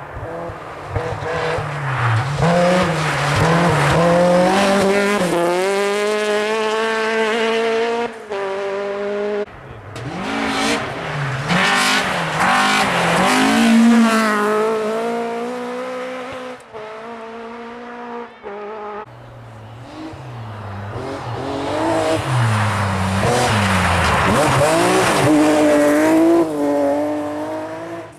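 Rally cars at full throttle passing one after another on a snowy special stage. The engines rev hard, their pitch climbing repeatedly as each car accelerates, with a few sudden breaks in the sound.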